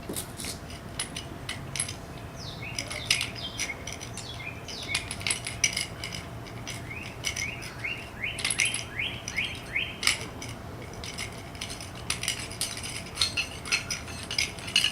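Metal clinking and clicking of a manual jack handle and its extension rods as the jack is cranked up by hand, still unloaded and rising toward the vehicle's frame. About seven seconds in comes a quick regular run of short, rising, high chirps.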